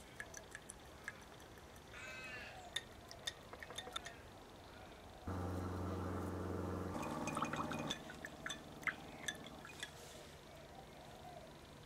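Faint ticks and clinks of a wire in a small glass of vinegar and salt as salt is shaken in and the wire is stirred, with small liquid sounds. A low steady hum starts suddenly about five seconds in, is the loudest sound, and fades out by about eight seconds.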